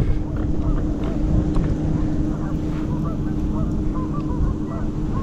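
Many short honking calls from distant waterfowl, repeated all through, over a steady low rumble.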